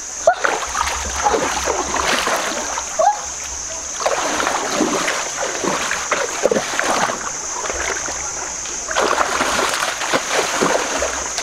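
Water splashing and churning as a person gropes with her hands in a shallow stream and then wades quickly through it, the splashing loudest about four seconds in and again near the end. A steady high-pitched hiss lies underneath.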